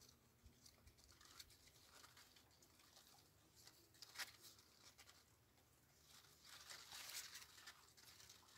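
Fig leaves rustling faintly: a scatter of soft crackles, with a brief louder rustle about four seconds in and a longer one near the end.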